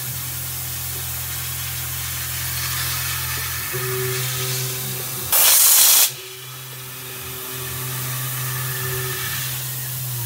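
Tormach 440 CNC mill machining a brass part: the spindle runs with a steady hum and hiss, its tone shifting a few times as the cut moves on. A loud hiss lasting under a second comes about five seconds in.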